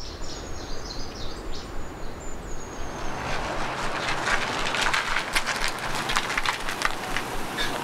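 Birds chirping over a steady outdoor rumble, then a yellow SUV drives past close by from about three seconds in, its tyre noise rising as a hiss with scattered crackles on the road surface.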